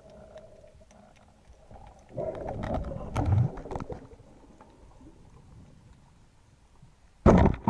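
Underwater sounds: a burst of knocking and rustling about two seconds in, then, near the end, a short, very loud crack as a band speargun is fired at a fish.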